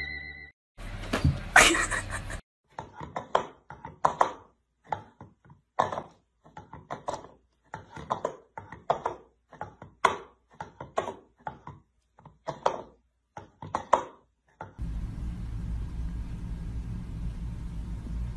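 A loud burst of noise lasting about a second and a half near the start. Then a long run of irregular hollow thunks and taps: a cat batting at an upturned plastic bowl on a hard floor. A steady low rumble of background noise takes over in the last few seconds.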